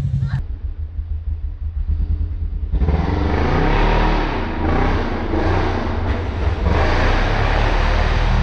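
Polaris RZR XP 1000's twin-cylinder engine running and revving, muffled at first, then much louder from about three seconds in as the machine drives on, with the splash of it ploughing through a mud hole near the end.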